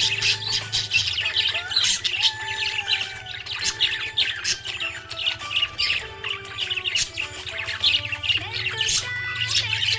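Budgerigar chirping: a dense, unbroken stream of quick, high chirps and warbles, over background music of steady held notes that change in pitch.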